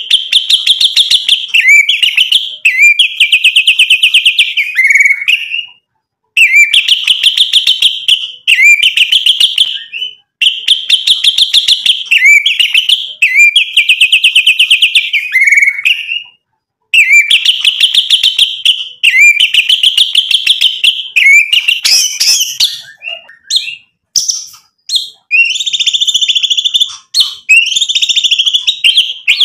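White-rumped shama (murai batu) singing loudly in long runs of fast repeated, trilled high notes. The runs break off in short pauses every few seconds, and in the last few seconds the song turns into more varied, broken whistled notes.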